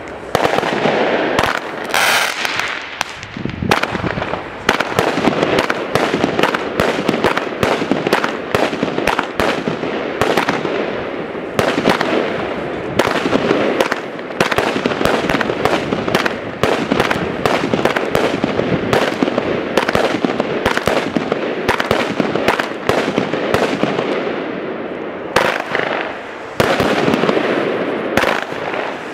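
Weco "Unforgettable" consumer firework battery firing: a fast, near-continuous string of shots and bangs mixed with dense crackling, with a brief lull shortly before the end.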